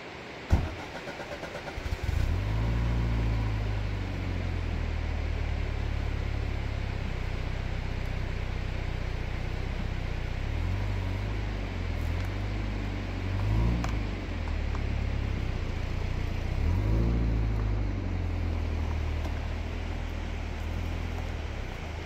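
A Peugeot sedan's petrol engine cranking briefly and catching about two seconds in, then running steadily, with short rises in revs about a third and three quarters of the way through. A sharp click comes just before the cranking. The car pulls away near the end.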